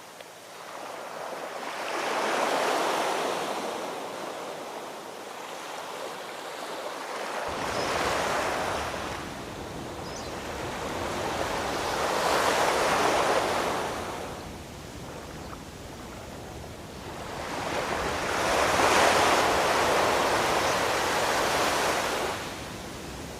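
Ocean surf: waves breaking and washing up the shore, swelling and fading four times. A deep low rumble joins in about a third of the way through.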